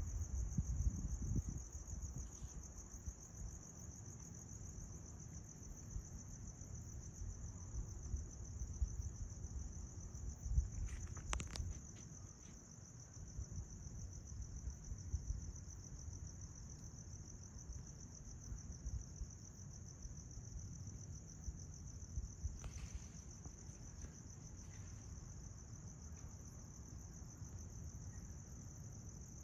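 Crickets trilling steadily, one continuous high-pitched trill, over a low rumble of wind on the microphone. There is a brief knock or handling click about eleven seconds in and a fainter one near twenty-three seconds.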